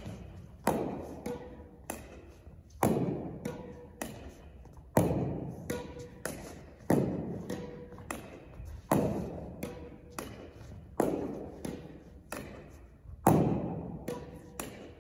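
Tennis ball rallied off a gym wall with a racket: a sharp hit about every two seconds, with smaller knocks of the ball off the wall and floor between. Each impact echoes in the gym.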